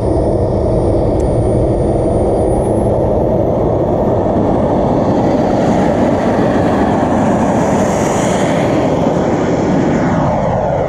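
Kingtech K80 G2 model jet turbine, burning diesel, running at high power as the RC MB-339 accelerates away down the runway. A steady loud roar with a high whine, its pitch falling near the end as the jet draws away.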